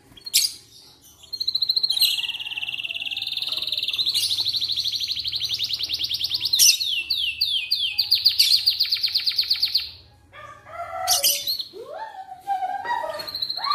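Domestic canary singing: a long, fast rolled trill of rapidly repeated high notes lasting several seconds, with a run of falling notes partway through. It breaks off about ten seconds in, then resumes with shorter, varied phrases.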